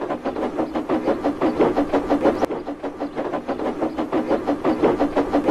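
Steam locomotive with a train of trucks running along the rails: a fast, even beat of chuffing and wheel clatter over a steady hum.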